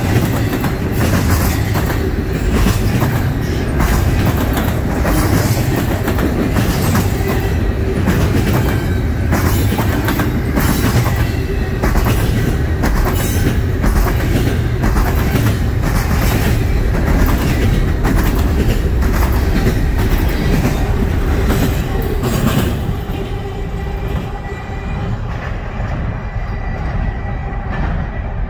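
Double-stack intermodal train's container-laden well cars rolling past at close range: a steady rumble with repeated clickety-clack of wheels over rail joints, fading near the end as the last cars pull away.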